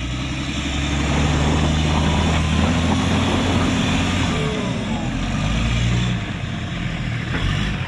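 A 4x4 off-road vehicle's engine working under load, held at steady revs as it crawls over a difficult section, easing off a little about six seconds in.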